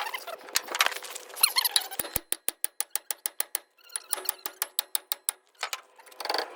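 A ratchet wrench clicking rapidly and evenly, about eight clicks a second, in two runs of a second or so, after a stretch of scraping and squeaky metal noise.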